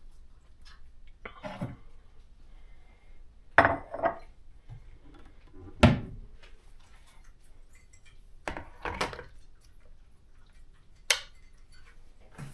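Dishes and cutlery clattering: a few separate knocks and clinks, with quiet between, the last a sharp high clink.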